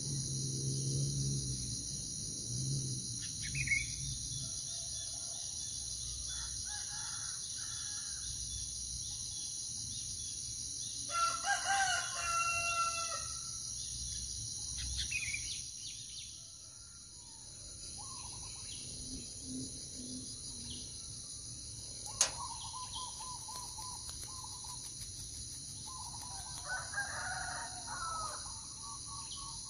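Steady high-pitched insect drone, with a rooster crowing twice: once about eleven seconds in and again near the end. A run of low, repeated hooting notes opens the stretch.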